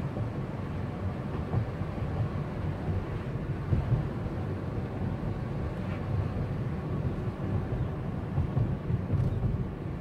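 Car driving at road speed, heard from inside the cabin: a steady low rumble of engine and tyre noise.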